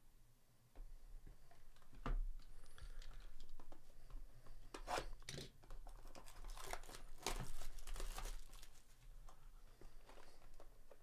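Crinkling and tearing of packaging as a Panini trading-card box is handled and torn open by hand. It comes as a run of sharp crackles and snaps, busiest midway.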